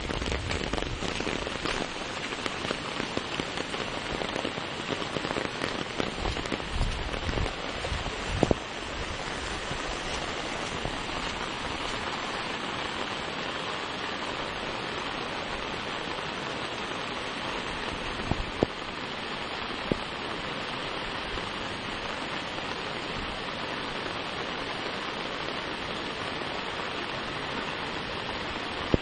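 Steady rain falling, an even hiss throughout, with a low rumble in the first several seconds and a few sharp taps, one about 8 seconds in and two around 18 to 20 seconds in.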